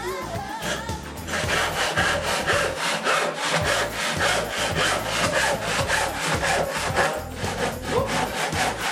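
Wood being hand-sawn: quick, even back-and-forth rasping strokes, about three a second, starting about a second in.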